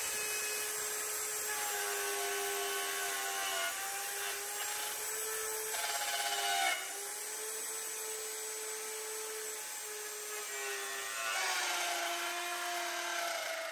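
Bosch plunge router with a bearing-guided flush-trim bit running and cutting along a plywood edge: a steady motor whine over the noise of the bit chewing wood, its pitch wavering slightly as the cut loads it. The cutting grows louder for about a second near the middle, then drops off sharply.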